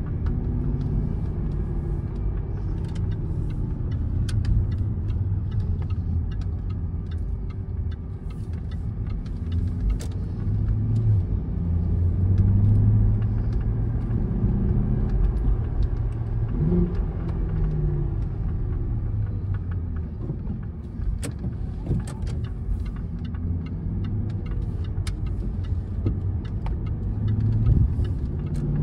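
Jaguar XKR's supercharged V8 and tyre noise heard from inside the cabin on the move. The engine note rises and falls as the car speeds up and slows, with scattered light clicks.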